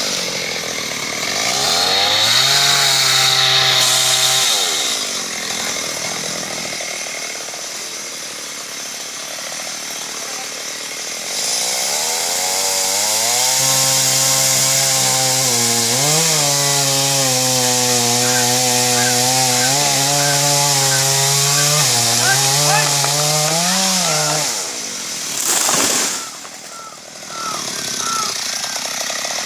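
Two-stroke chainsaw running near full throttle, cutting a big tree; its pitch sags and recovers several times as it labours in the cut. The sound drops away briefly near the end, then returns.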